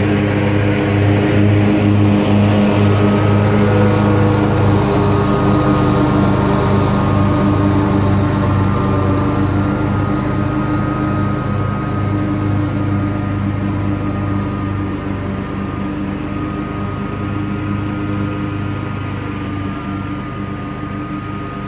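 Commercial Bobcat zero-turn mower running with its deck engaged while mowing, a steady engine drone that slowly fades as the mower moves away.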